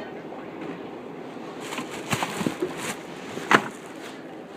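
Supermarket background: a steady hum with several short knocks and clatters, the loudest about three and a half seconds in.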